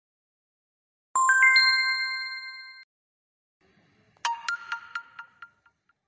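Two smartphone notification tones in turn: first a bright Huawei notification chime, several notes stacking quickly and ringing on as they fade over about a second and a half; then, about four seconds in, a quick run of about seven short high notes.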